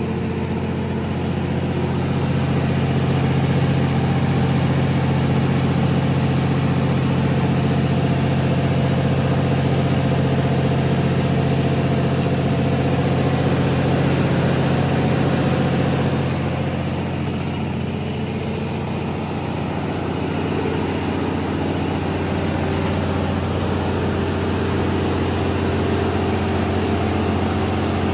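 350 kW Cummins/Onan diesel generator set running steadily with an even, low engine hum. It turns somewhat quieter about sixteen seconds in, then gradually comes back up.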